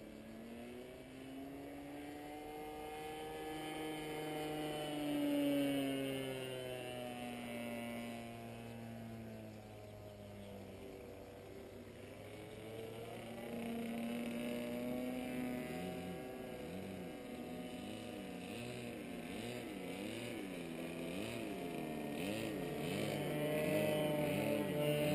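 Internal-combustion engine of a radio-controlled Ultimate aerobatic biplane flying overhead. It is loudest about five seconds in, when its pitch drops as it passes, then it rises again. In the second half its pitch wavers up and down about once a second.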